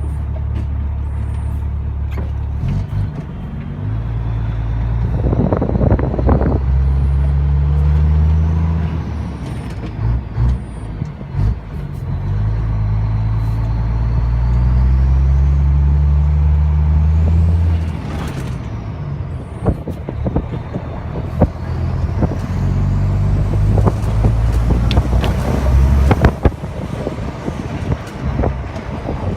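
Renault Magnum 440 E-Tech truck's 12-litre Mack E7 straight-six diesel pulling through the gears: the revs climb, drop at each shift and climb again, about three times. A turbo whistle rises and falls above the engine.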